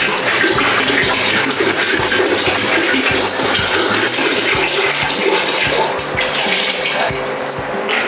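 Water poured from plastic bottles into a half-full plastic water tank, a steady splashing gush of water falling onto water, easing briefly near the end.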